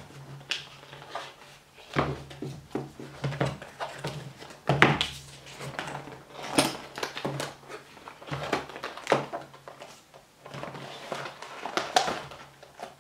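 A cardboard product box being opened by hand: the lid flaps and a paper tab are pulled, with irregular scraping, tapping and knocking of the card, and the padded fabric strap inside is taken hold of near the end.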